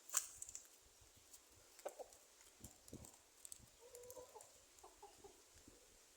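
Roosters clucking softly, a few faint low calls about four to five seconds in. A sharp click just after the start is the loudest sound, and a few lighter knocks follow around two to three seconds in.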